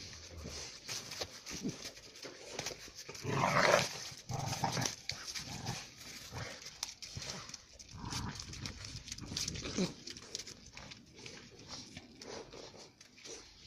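Two Central Asian Shepherd puppies fighting, with irregular bursts of growling and snarling, the loudest about three and a half seconds in.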